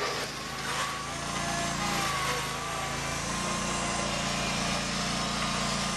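John Deere garden tractor's small engine running steadily while it drives a front-end loader into snow, with a faint wavering whine above the engine note.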